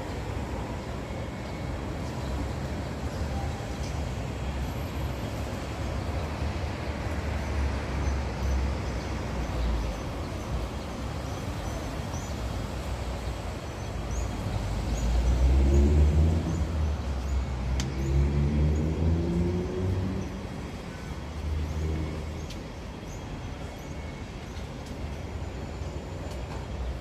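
Street traffic running steadily, with one vehicle's engine rising in pitch as it accelerates, loudest about halfway through and fading out a few seconds later.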